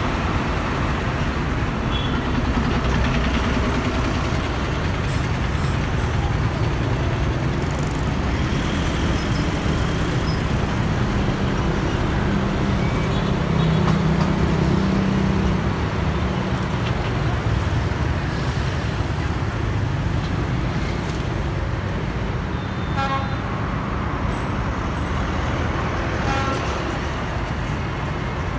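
Busy street traffic, mostly motorbikes and cars passing steadily. A city bus's engine rumbles louder in the middle as it pulls into the stop, and a couple of short horn beeps sound in the last third.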